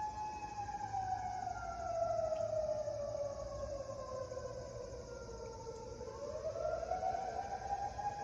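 Sterling M-10 electromechanical fire siren sounding for a medical call. Its pitch slowly falls over about five seconds, then climbs back up to a steady high tone near the end.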